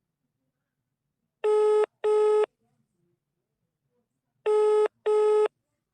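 Telephone ringback tone, the ringing the caller hears while the line rings unanswered before it goes to voicemail. It rings in a double-ring pattern, two short buzzy rings close together, twice, about three seconds apart.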